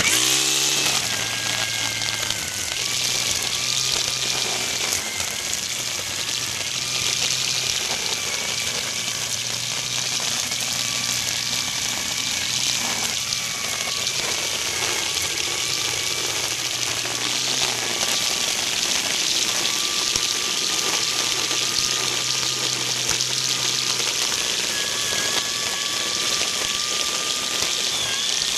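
Corded electric GreenWorks string trimmer fitted with zip ties in place of string, running at speed and cutting through tall grass and weeds. A steady motor whine sits under a dense hiss of the ties slashing the grass, starting suddenly at the outset.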